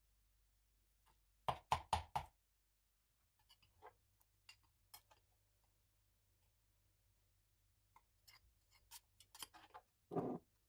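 Stone pestle pounding curry paste in a stone mortar: four quick heavy strikes. Then lighter scattered clicks and scrapes of a metal spoon against the stone, and a duller knock near the end.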